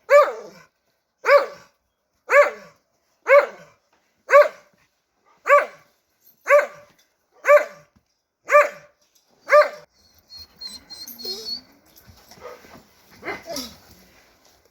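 A dog barking in a steady series, about one bark a second, ten barks in a row, then quieter, irregular sounds with one more bark near the end.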